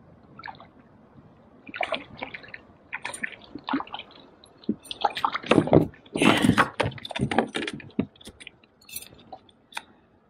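Water splashing and irregular knocks and clatter as a kokanee salmon is reeled up and lifted out of the lake into a kayak, loudest about six seconds in.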